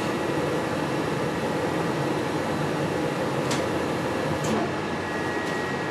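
Rheem gas furnace running steadily: a constant blower and burner rush, with two faint clicks about three and a half and four and a half seconds in.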